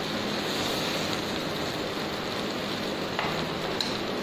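Grated mango thokku sizzling steadily in oil in a nonstick frying pan, with a couple of light clicks from the slotted spatula after about three seconds.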